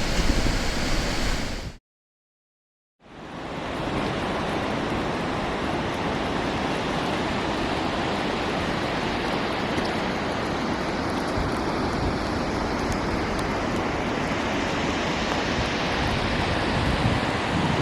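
Icelandic waterfall rushing: a steady roar of falling water. It cuts to silence for about a second near the two-second mark, then a steady rush of water resumes.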